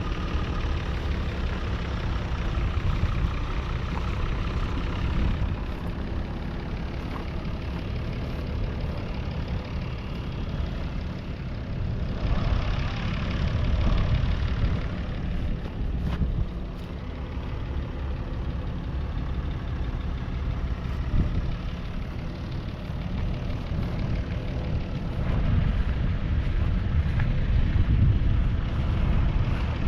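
A 1995 Deutz-Fahr AgroXtra 6.07's 5.7-litre six-cylinder diesel engine running steadily at work. It grows louder twice, about midway and again near the end.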